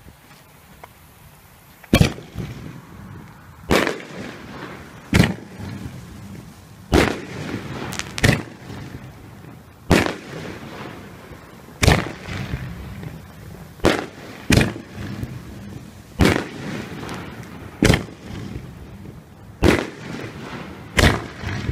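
Shelton Black Avenger "Johnny Be Cool" 500-gram nine-shot fireworks cake firing: a series of sharp, loud shell reports, roughly one every one to two seconds, starting about two seconds in.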